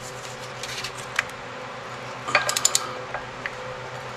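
Torque wrench on an engine's flywheel nut: a few sharp metallic clicks, one about a second in and a quick cluster of four or five about halfway through, over a steady low hum.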